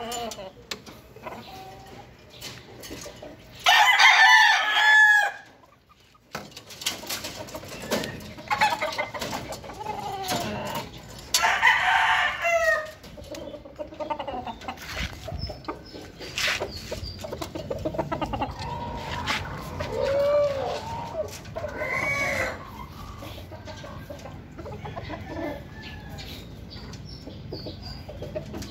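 Roosters crowing several times, each crow lasting a second or two, the loudest about four seconds in and again about twelve seconds in, with a fainter crow around twenty-two seconds. Between the crows come scattered sharp clicks and knocks from the hinged aluminum cage doors being handled.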